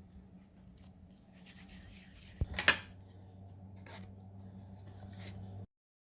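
Faint rustling and handling noises over a steady low hum, with one sharp knock about two and a half seconds in; the sound cuts out abruptly near the end.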